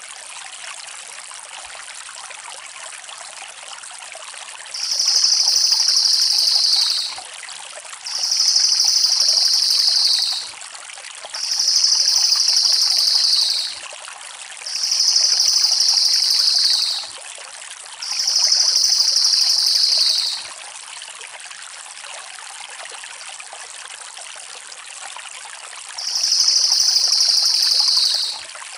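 Crested jay (cililin) giving loud, rapid rolling rattle calls. There are six, each about two seconds long and dropping slightly in pitch at the end. Five come about a second apart, starting some five seconds in, then a pause before a sixth near the end. Behind them is a steady sound of running water.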